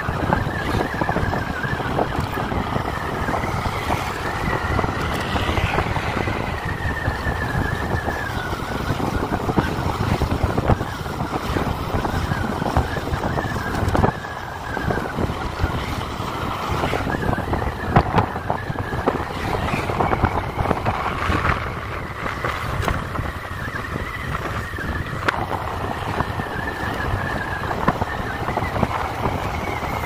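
A motor vehicle on the move: steady engine and road noise with wind on the microphone, and a high whine that drifts slightly up and down.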